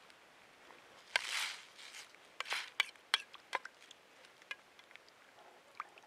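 A metal spoon stirring pasta in water in a stainless steel pan: several sharp clinks of the spoon against the pan, with two short swishes of the water about a second and two and a half seconds in.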